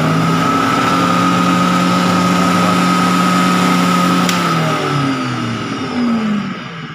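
Food processor motor running on its mixer setting with a steady high whine, then slowing near the end, its pitch falling. The motor is turning normally again after being repaired for not spinning.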